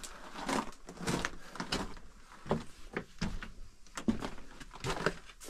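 Footsteps on loose rock and gravel in a mine passage, uneven, one or two a second.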